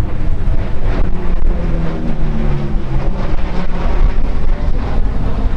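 Lockheed P-38L Lightning's twin Allison V-12 engines droning as it flies by, the pitch sliding down in the middle of the pass. Heavy wind buffeting on the microphone runs underneath.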